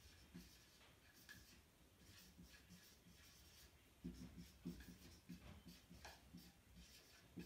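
Dry-erase marker writing on a whiteboard: faint, short scratching strokes with pauses between them, a little louder from about four seconds in.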